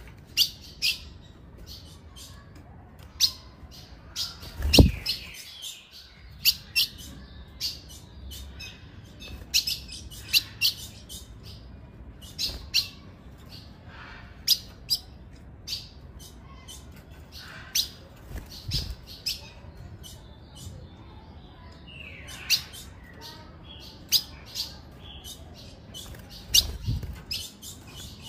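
Female ultramarine grosbeak (azulão) giving short, sharp chip calls, one or two a second at irregular intervals, a few of them sliding down in pitch. A few low thumps come through, the loudest about five seconds in.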